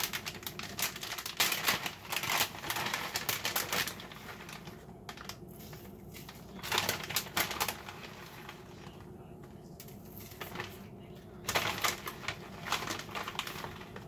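Shredded cheese shaken out of a plastic bag onto parchment paper: crinkling of the bag and the light rustle of the shreds landing on the paper, in three bouts with quieter gaps between.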